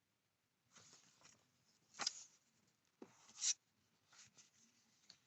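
Paper and cardboard rustling in a few short bursts as documents are taken out of a laptop box, the loudest about two and three and a half seconds in.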